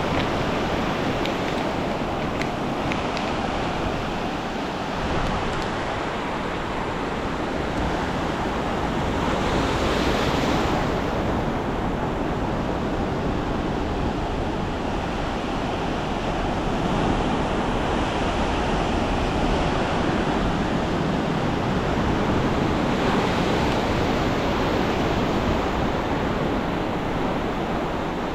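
Ocean surf on a sandy beach: a continuous wash of breaking waves, swelling louder about ten seconds in and again near the end.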